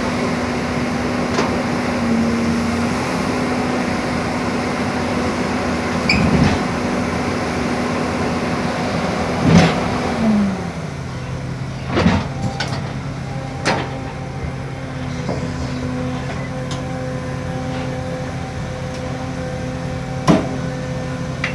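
Excavator diesel engine running steadily at high revs, dropping to a lower speed about halfway through, with a few short knocks along the way.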